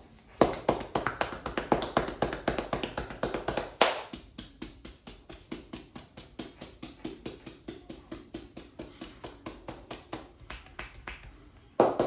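A barber's hands tapping in fast rhythmic percussive massage strokes, about six slaps a second. The strokes are loudest for the first few seconds, then go on softer and steady, with a fresh loud burst near the end.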